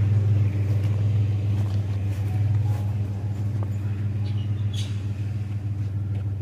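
Vehicle engine idling: a steady low hum that grows slowly fainter.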